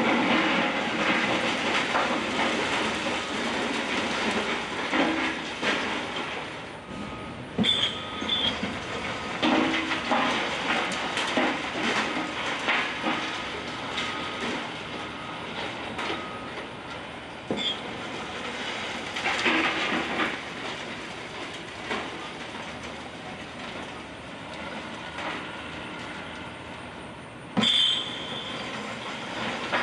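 A wrecking ball demolishing a concrete and steel building: a continuous clatter of falling debris, dense with sharp knocks. Brief high metal squeals come about 8 seconds in and again near the end, the second with a sudden loud crash.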